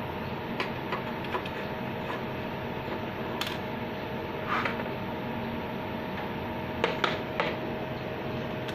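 Scattered light clicks and taps of a telecom indoor unit and its memory module being handled, a few close together near the end, over a steady hum with a faint constant tone.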